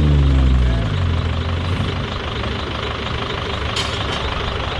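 Car engine with its note falling away over the first second, then running steadily.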